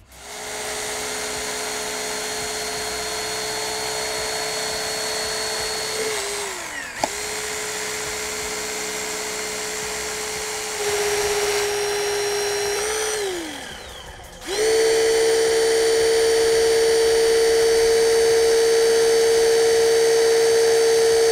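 Hurst Jaws of Life hydraulic spreader running, its motor-driven pump giving a steady whine. The whine winds down in pitch and stops about 6 s and again about 13 s in, each time starting up again, louder after the second restart.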